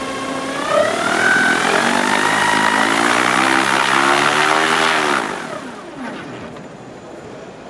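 Discus 2c FES glider's nose-mounted electric sustainer motor and propeller running. It whines up in pitch near the start, holds loud and steady for about four seconds, then winds down with a falling pitch about five seconds in.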